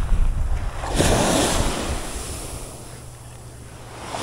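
Small waves washing up onto a sandy beach, one rising about a second in and fading away, with wind rumbling on the microphone.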